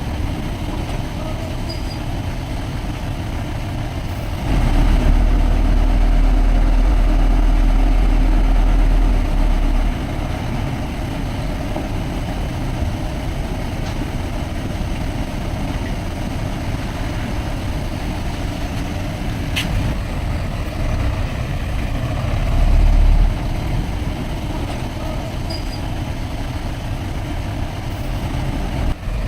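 Diesel engine of heavy earthmoving machinery running steadily. It grows louder and deeper for about five seconds near the start and surges briefly again about three quarters of the way through, with a single sharp click a little past two-thirds of the way through.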